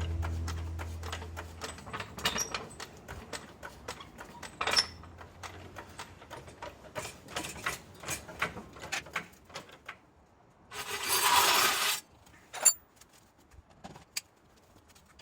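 Scattered light metallic clicks and clinks of small parts or tools being handled, with a hiss lasting about a second near the end.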